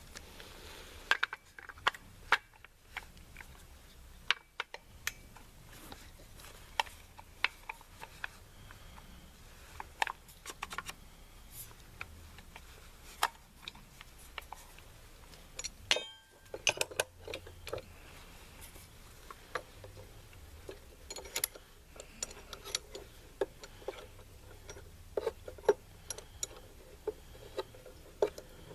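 Metal tools and AR-style rifle upper parts being handled during assembly: irregular small clicks, taps and clinks of metal on metal.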